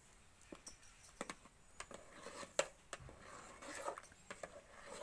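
Steel ladle stirring mango syrup in a steel pot, clinking and scraping against the pot in a run of scattered sharp clicks.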